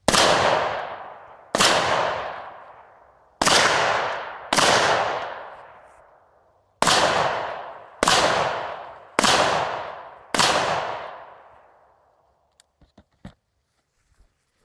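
AR-15-style rifle in .223/5.56 fired eight times over about ten seconds. Each shot has a long fading echo. A few small knocks follow near the end.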